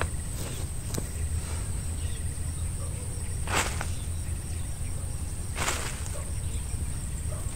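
Insects chirring in a steady high-pitched drone over a low rumble, with three brief rustles, the loudest about three and a half and five and a half seconds in.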